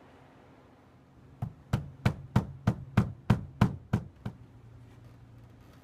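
Claw hammer tapping Atlas track nails through the ties of model railroad track into the wooden layout base: about ten sharp knocks, roughly three a second, starting about a second and a half in and stopping a little after four seconds.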